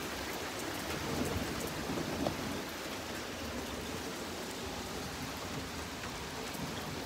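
Heavy rain falling steadily on the street and lawns, a constant hiss, with a brief low rumble swelling about a second in.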